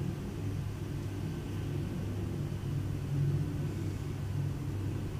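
Steady low hum, with no other distinct sounds.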